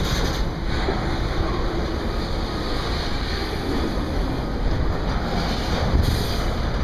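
CSX intermodal freight train's trailer-on-flatcar cars rolling past, a steady rumble of wheels on rail. Wind buffets the microphone in gusts, near the start and again near the end.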